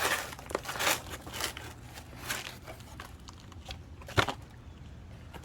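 Cardboard box and packing material rustling and crinkling as the box is opened and handled, with irregular crackles and a sharper knock about four seconds in.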